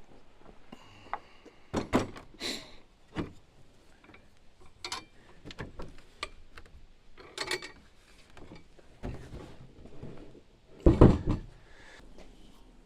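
Scattered knocks and clunks of the Weber kettle grill's metal parts being handled and taken apart, with the loudest clatter near the end.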